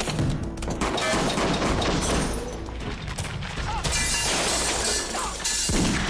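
Fight-scene sound effects from an action film: repeated crashes, impacts and things breaking, with a musical score underneath. The densest, loudest stretch comes in the second half.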